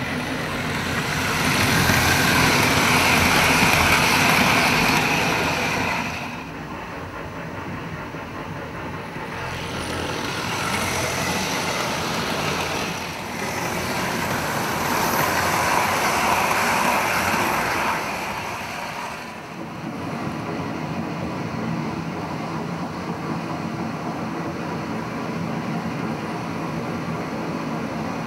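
Hornby 00 gauge model trains running past close by, their wheels and motors rumbling on the track. The sound swells loud twice, about a second in and again around the middle, then settles to a steadier, quieter run.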